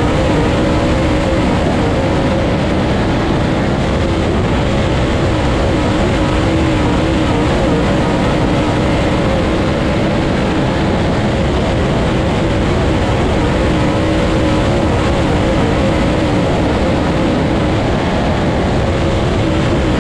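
Dirt late model race car's V8 engine running hard under racing load, heard from inside the cockpit, loud and steady with its pitch rising and falling slightly as the throttle is worked.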